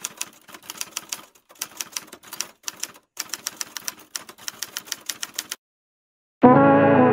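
Typewriter keystroke clicks, a typing sound effect, in quick runs with short gaps as text is typed out. They stop, and near the end music with brass comes in loudly.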